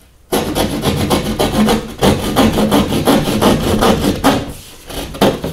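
Hand sheetrock saw (drywall jab saw) cutting through a gypsum drywall panel, in rapid back-and-forth strokes that start about a third of a second in and ease off briefly near the end.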